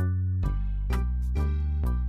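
Background music: pitched instrument notes struck about twice a second over a steady bass line.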